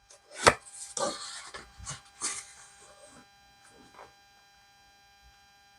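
Trading-card packaging being handled: a sharp click about half a second in, a few seconds of crinkly rustling with small ticks, and another sharp click at the end.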